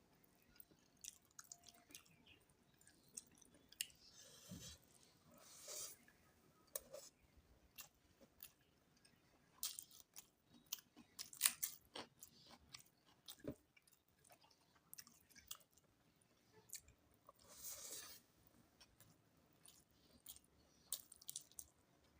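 Faint close-up chewing and mouth sounds of a person eating, with many short irregular clicks and smacks and a few brief louder crunchy bursts.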